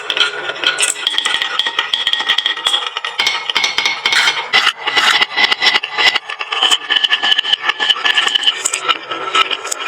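Many glass marbles rolling and clattering down a wooden marble-run slope, a constant dense rattle of small clicks and knocks with a ringing rolling hum that comes and goes.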